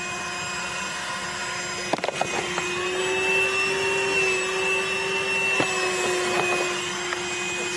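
HOTOR 12-volt handheld car vacuum running steadily with a motor whine while it is worked over a cloth car seat. A sharp knock comes about two seconds in. After it the whine rises slightly in pitch and runs a little louder.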